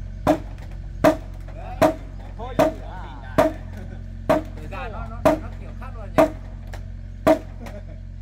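Hammer blows on timber, about one a second, each knock ringing briefly, as the wooden frame of a hut is fastened together. A low steady hum runs underneath.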